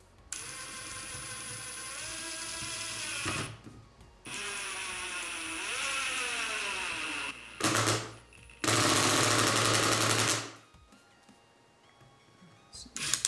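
Ryobi P238 brushless impact driver on its lowest speed driving a 2-inch sheetrock screw. The motor whines for about three seconds, stops briefly, then whines again, its pitch dropping as the screw loads up. After a short burst comes about two seconds of rapid hammering as the impact mechanism kicks in.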